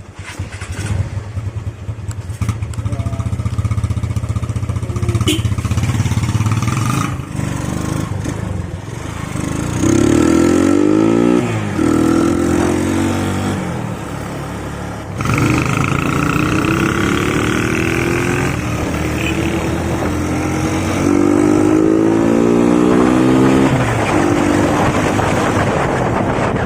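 Single-cylinder motorcycle engine under way, pulling up through the gears: the pitch climbs, breaks off at each shift and climbs again, several times. Wind noise grows near the end.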